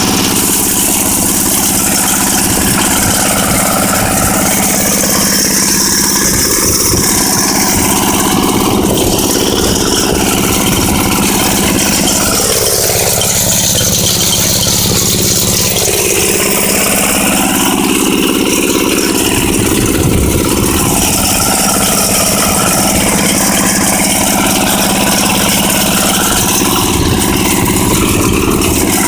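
Belarus walk-behind tractor's 9 hp engine running steadily under load while it tills with its rotary cutters, with a rattle from the machine and the pitch rising and falling a little as the load changes.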